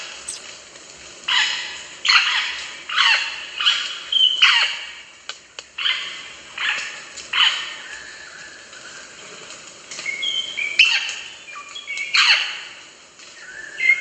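Rosellas calling: a series of short, noisy calls, about one every two-thirds of a second, then a pause and a few short whistled notes around ten seconds in, mixed with two more of the noisy calls.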